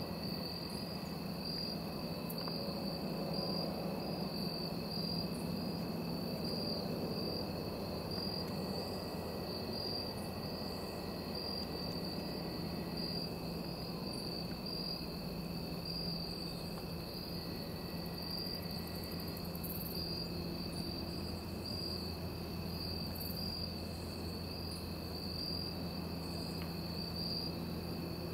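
Steady evening chorus of insects: a continuous high-pitched chirring that pulses at an even rate, over a faint low background hum.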